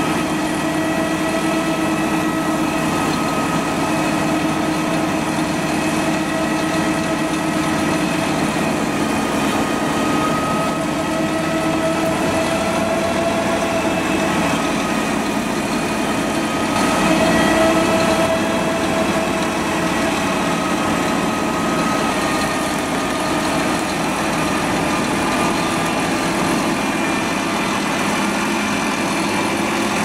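Scania DC13 six-cylinder diesel engine of a self-propelled drum wood chipper running steadily with no wood being fed, with a steady whine of several tones over the engine noise; it swells briefly a little over halfway through.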